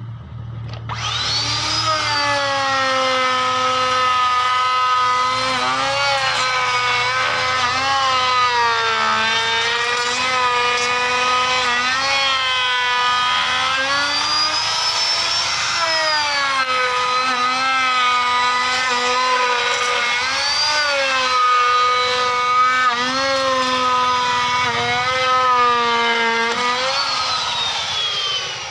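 Electric handheld plunge router spinning up about a second in, then cutting a molding profile along a wooden frame. It makes a high motor whine whose pitch dips and recovers again and again as the bit bites into the wood, and the whine dies away near the end.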